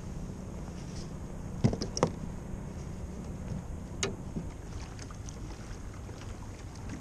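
Steady wind and water noise around a plastic fishing kayak on open water, with a few sharp knocks: two close together about two seconds in and one more at about four seconds.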